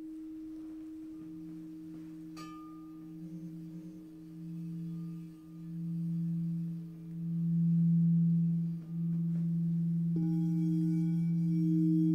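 Singing bowls sounding two long sustained pure tones: a steady higher hum, joined about a second in by a deeper tone that swells and fades in slow waves before settling. Near the end the higher tone grows louder with a slow pulsing.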